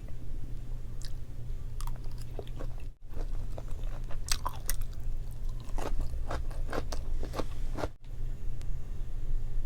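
Close-miked chewing of boiled pork and kimchi, with repeated crunches that grow denser in the second half, over a steady low hum.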